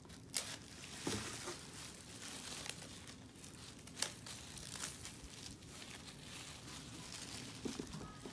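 Plastic shrink wrap being peeled off a boxed tablet, crinkling quietly with a few sharp crackles.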